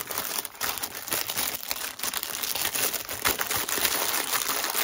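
Clear plastic packaging bag crinkling as it is handled and pushed around a folded piece of fabric, a dense run of small crackles with no pause.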